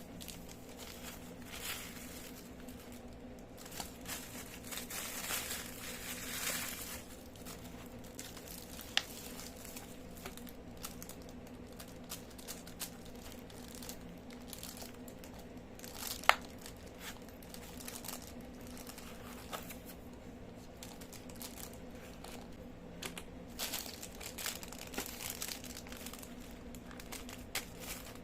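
Plastic packaging being crinkled and handled while parcels are unpacked, an irregular rustle with a few sharp clicks, the loudest about sixteen seconds in.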